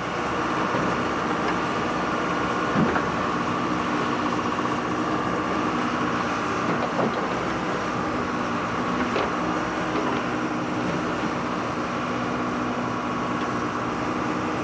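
Heavy truck or machine engine running steadily, with an occasional knock.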